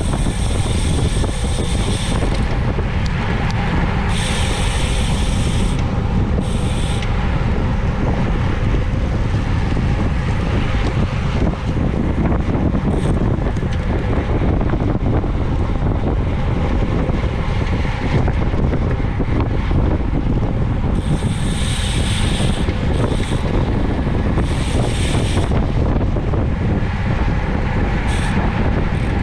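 Wind buffeting a bike-mounted camera's microphone while riding: a loud, steady low rumble. Brief patches of higher hiss come and go every few seconds.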